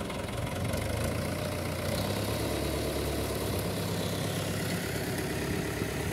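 An engine running steadily at an even, low idle-like drone, growing a little louder in the first second and then holding constant.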